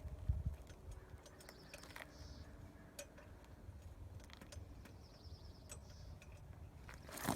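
Hand tools working on the car's wastegate nuts: scattered light metallic clicks and knocks, with a low thump early on. A faint high rapid ticking, ending in a short tone, comes twice, about four seconds apart.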